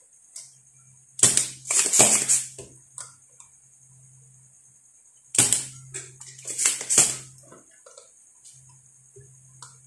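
Spring-loaded solder sucker (desoldering pump) being fired and reset against a circuit board joint while the solder is melted: two clusters of sharp clicks and snaps, the first about a second in and the second about five seconds in.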